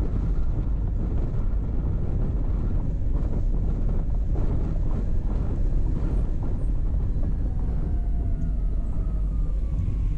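Steady low rumble of a car being driven, engine and tyres on the road. A faint falling tone rises above it in the last few seconds.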